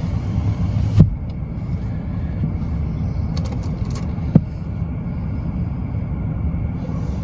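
Steady low rumble of a car rolling slowly, heard inside the closed cabin, with a sharp click about a second in and another about four seconds in.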